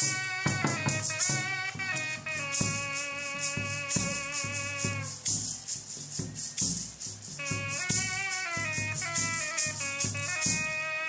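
A flute plays a melody of long held notes over seed-pod rattles shaken in quick, busy strokes, in Andean folk style. The flute breaks off for about two seconds halfway through while the rattling goes on.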